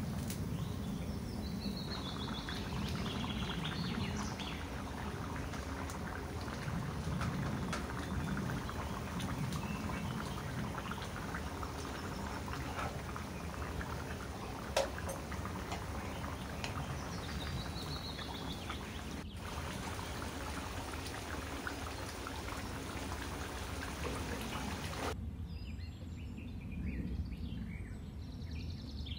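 Potato and egg curry boiling hard in a pan, a steady bubbling with many small pops and crackles, which turns duller near the end.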